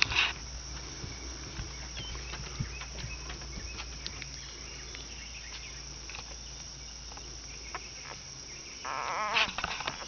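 Newborn basset hound puppies squeaking faintly now and then, with a short louder squeal at the start. About nine seconds in, one puppy cries out in a wavering whine.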